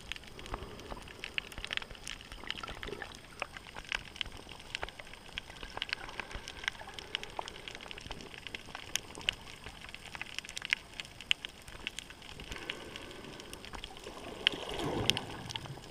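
Underwater ambience over a rocky reef: a steady crackle of irregular sharp clicks and pops. Near the end comes a brief louder rush of water.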